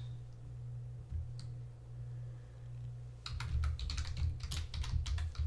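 Typing on a computer keyboard: one lone click about a second and a half in, then a quick run of keystrokes over the last two seconds, over a steady low hum.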